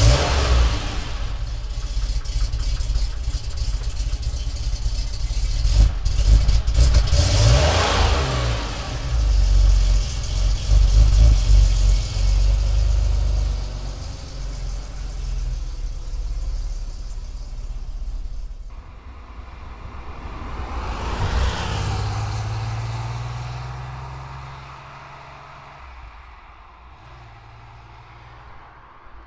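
1982 Porsche 911 SC's air-cooled 3.0-litre flat-six running and revved in several surges, then pulling away. After a sudden cut, the car comes past, rising and falling, and fades into the distance.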